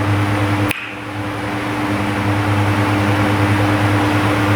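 Steady mechanical hum with a low held tone and an even hiss, broken by a single click less than a second in, after which it dips briefly and builds back up.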